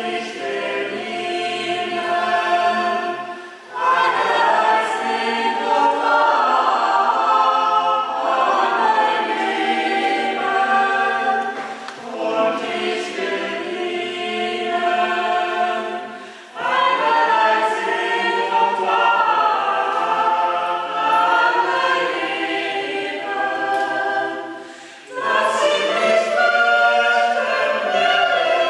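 A choir singing in long, held phrases, with short breaks about 4, 16 and 25 seconds in.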